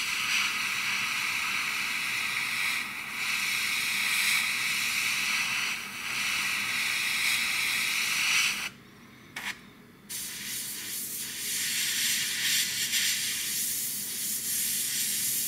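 Gravity-feed airbrush spraying paint: a steady hiss of air that cuts off for about a second and a half a little past halfway, then starts again.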